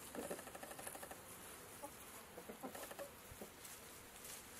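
Chickens clucking softly in short calls, a cluster near the start and another just past the middle.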